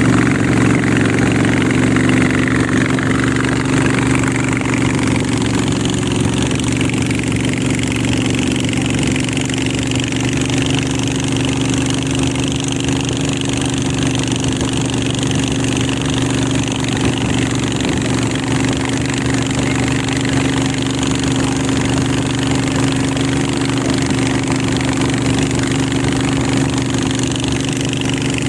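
Motorboat engine running steadily at a constant pitch, a continuous drone.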